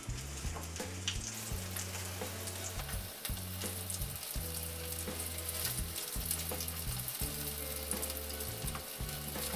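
Semolina-coated spinach, pea and paneer kababs shallow-frying in hot oil in a pan: a steady, crackling sizzle, with the scrape and tap of a slotted spatula as the kababs are turned.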